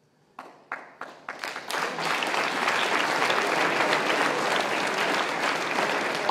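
Audience applause: a few scattered claps at first, swelling within about two seconds into full, steady applause.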